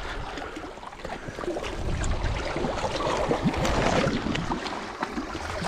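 Sea water sloshing and lapping against shoreline rocks, with wind rumbling on the microphone, strongest in the middle.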